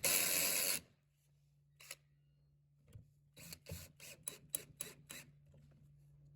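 Wooden furniture leg being screwed back onto its base by hand, wood rubbing against wood: a loud scrape lasting under a second, a single click, then a quick run of about eight short rubbing strokes.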